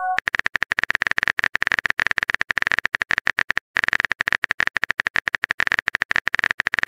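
Rapid tapping of a phone's on-screen keyboard sound effect, about ten clicks a second, with a brief break a little past halfway.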